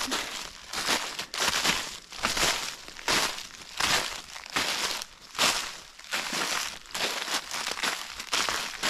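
Footsteps crunching through dry, frosted fallen leaves at a steady walking pace, roughly one crunchy step every 0.7 seconds.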